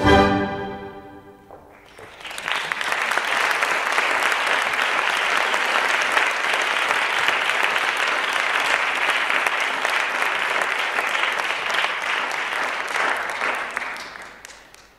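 Recorded orchestral music ends on a final chord that dies away. About two seconds in, an audience breaks into steady applause that carries on and fades out near the end.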